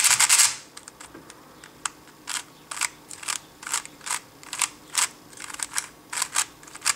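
Layers of a 3x3 speed cube being turned: a quick flurry of clicking turns at the start, then single clicks about three a second.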